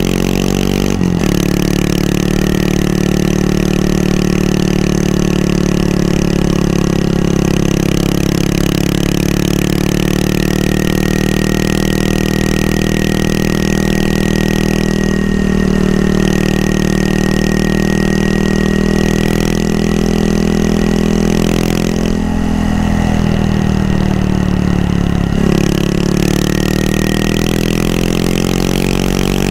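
Honda Monkey 125's air-cooled single-cylinder four-stroke engine running under way at steady revs. The revs dip and pick up again about halfway through and twice more in the last third, as with throttle changes or gear shifts.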